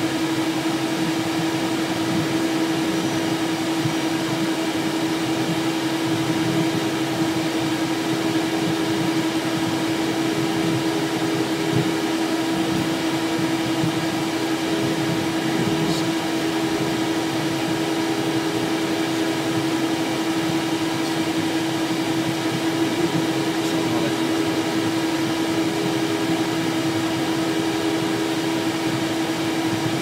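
Steady cockpit noise of a Cessna Citation Excel business jet taxiing, its turbofan engines at idle giving a constant hum with one strong held tone.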